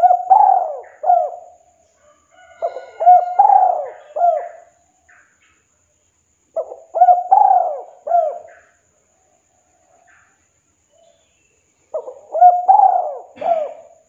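Spotted dove (tekukur) cooing: four phrases of several quick coos each, a few seconds apart. The call is of the 'kuk 2' type, as Indonesian dove keepers class it.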